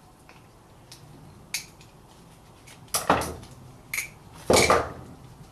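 Metal brake-pad parts being handled, giving a few sharp clinks and clatters. The loudest come about three seconds in and again about four and a half seconds in.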